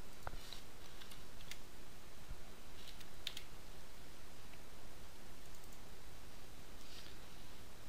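A few faint, scattered computer keyboard key presses and mouse clicks over a steady background hiss.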